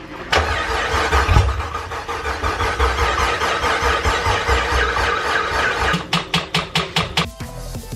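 Whipple-supercharged LT1 V8 cranked on its starter for its first start after a rebuild, on open headers. It runs for about six seconds, then turns over in slower, separate pulses for about a second and stops without settling into an idle.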